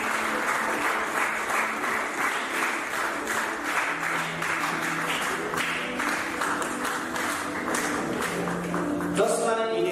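Audience applauding, with instrumental music of long held notes playing underneath. A voice begins near the end.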